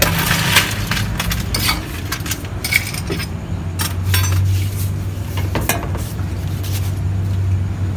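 Scattered clinks of ice against glass as a drinking glass is scooped into a cooler of ice, followed by spoon and dish clatter. A steady low hum underneath grows stronger about halfway through.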